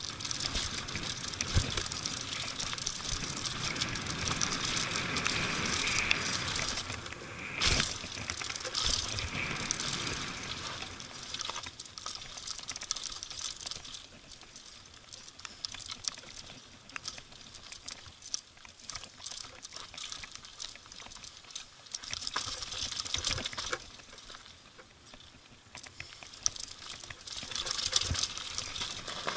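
Mountain bike rolling fast down a loose dirt and gravel trail: a continuous gritty rush of tyres over stones and wind, with clicks and rattles from the bike over the bumps. There is a sharp knock about eight seconds in, and the noise drops for a stretch in the middle before rising again near the end.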